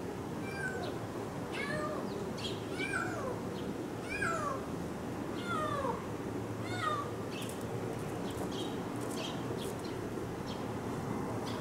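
A kitten meowing over and over: about six high, short meows, each falling in pitch, in the first seven seconds. Later come a few brief high clicks or chirps.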